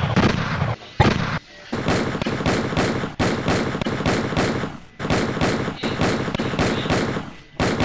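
Rapid automatic gunfire in several long bursts with short breaks between them.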